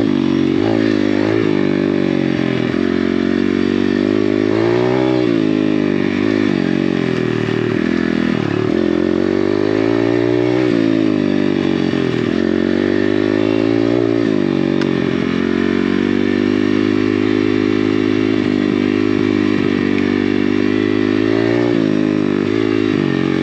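Apollo RFZ 125cc pit bike's single-cylinder four-stroke engine running under way, revving up and easing off several times, with clear dips and rises in pitch around five, eleven and fourteen seconds in.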